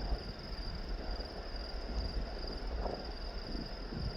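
Crickets trilling steadily in a high, finely pulsing tone, with wind rumbling on the microphone.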